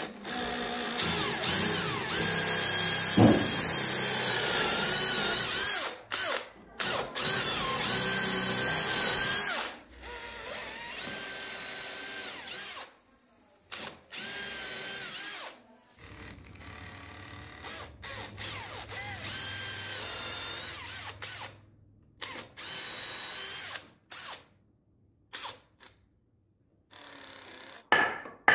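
Cordless drill boring holes into hardwood and plywood, its motor whining in repeated runs of a few seconds that start and stop, with the pitch shifting as the bit cuts. One sharp knock about three seconds in is the loudest moment.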